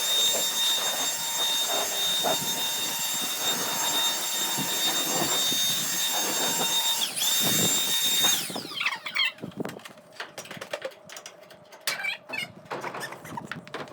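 Electric power tool motor running at high speed with a steady whine for about eight seconds, dipping briefly under load near the end, then winding down. Scattered scraping and tapping follow.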